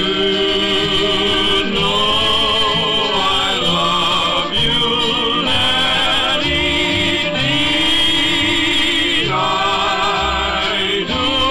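Vocal group singing a song in long held notes with vibrato, changing notes every second or two.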